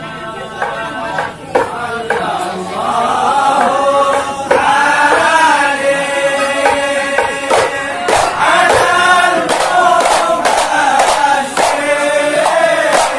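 Men singing a hadrah devotional chant, accompanied by hand-struck frame drums (rebana). The singing grows louder about four seconds in, and the drum strokes come more often in the second half.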